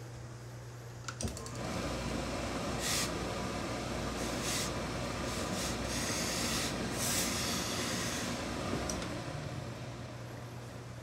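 Hose-fed industrial steam iron pressing a suit jacket. After a click about a second in there is a steady hiss of steam, with four or five sharper, brighter spurts as steam is shot into the cloth. The hiss fades out shortly before the end.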